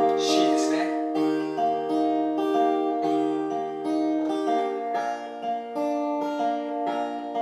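Steel-string acoustic guitar fingerpicked with thumb and index finger: single bass notes alternating under picked treble notes, in a steady folk accompaniment pattern, with a chord change a little past the halfway point.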